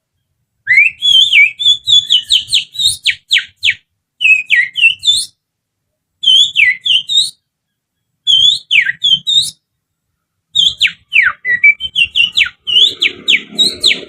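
Finger whistle blown through the little finger, imitating an oriental magpie-robin's song: about five phrases of quick, sharp whistled notes, many sliding down in pitch, with short pauses between. Near the end a rumbling noise comes in underneath.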